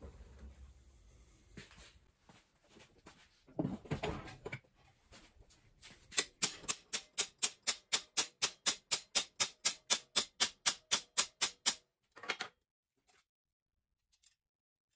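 Hammer striking a flat steel bar clamped in a bench vise: a run of about two dozen rapid, even blows, four or five a second, bending the bar over at the marked line.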